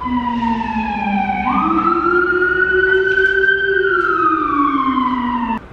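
An emergency vehicle's siren in one slow wail. The pitch sinks, jumps up about a second and a half in, holds, then slowly falls again, and it cuts off suddenly near the end.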